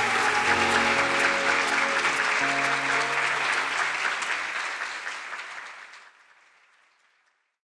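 Audience applauding over music with a few long held notes. Both fade out together over about three seconds, to silence near the end.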